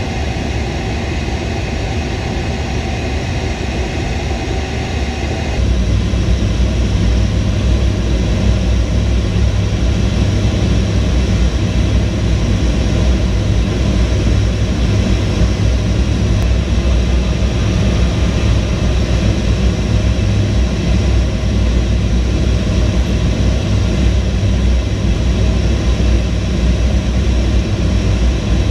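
Jet aircraft engines running in flight, a steady dense rumble. About five seconds in, the sound jumps to a deeper, louder rumble and a higher whine drops out, then it holds steady.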